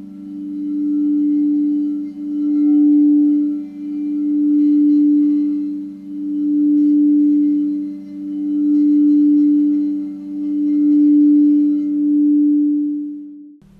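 Frosted quartz crystal singing bowls ringing as a wand is rubbed around a bowl's rim: a sustained two-note hum whose higher tone swells and fades about every two seconds. The sound cuts off suddenly near the end.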